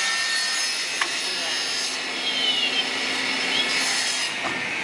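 HS455Q automatic aluminum profile cutting machine with its circular saw running, giving a steady whine and hiss with a low hum. The hum drops away near the end.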